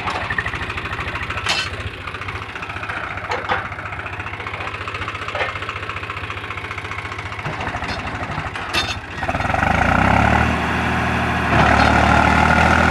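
Swaraj tractor's diesel engine idling with a steady rapid chug, broken by a few sharp clanks. About nine seconds in it revs up and runs louder under load.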